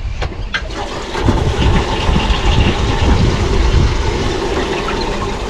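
Wind buffeting the microphone and water slapping against a boat's hull, with a few light clicks in the first second.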